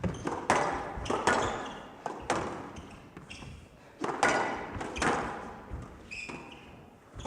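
Squash rally: the ball being struck by rackets and smacking off the court walls about once a second, each hit echoing in the hall, with a couple of short high squeaks between the hits.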